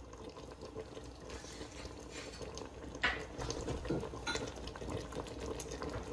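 Caramel and freshly added bourbon bubbling and simmering around apple chunks in an enamel pot, with a sharp clink of metal on the pot about three seconds in.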